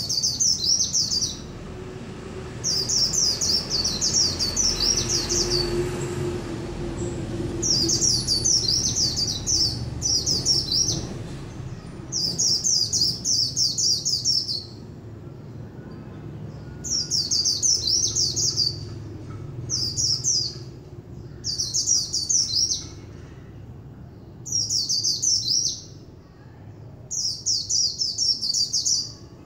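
Caged white-eye (chim khuyên) singing: fast, high twittering phrases of one to two seconds each, repeated with short pauses, about ten times in a row.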